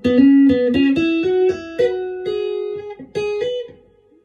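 Chapman Stick melody strings played by two-handed tapping through an amplifier set with a lot of reverb: a run of single notes at about four a second, ringing into one another and dying away near the end.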